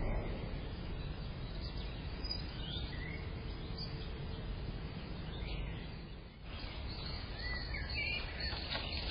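Garden ambience picked up by a camera microphone: a steady low noise with a few short bird chirps, mostly around three seconds in and again near the end.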